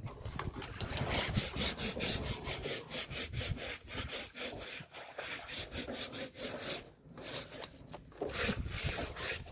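Rapid rhythmic scraping or rasping strokes, about three to four a second, breaking off briefly about seven seconds in and then resuming.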